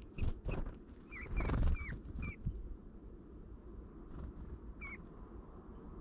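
A male Eurasian bullfinch forages on seed-strewn snow, making clusters of close, scratchy pecks and rustles in the first two seconds and again around four and five seconds in. Short high chirps are mixed in.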